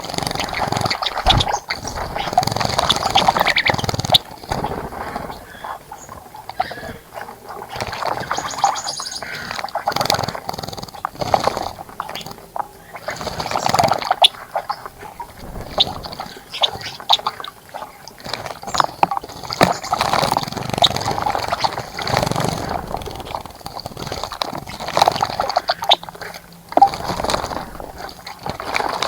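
Birds splashing in a shallow bird bath, in irregular bursts of a few seconds each with short pauses between.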